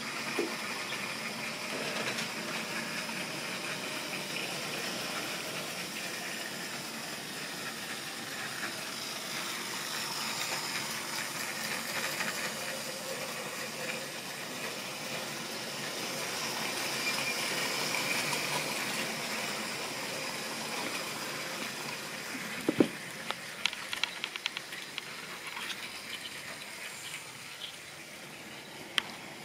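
Model railway goods train running on the track: a steady rolling rumble of wheels and motor that swells as the wagons pass close. Near the end, a few sharp clicks and knocks.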